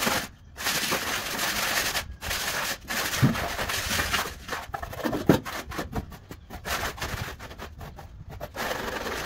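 Rough, hissy scraping noise in irregular bursts with short breaks between them, plus a few sharp clicks.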